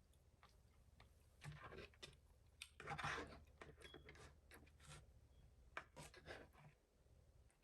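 Faint chewing, with a few short, irregular crunches and clicks. The loudest comes about three seconds in.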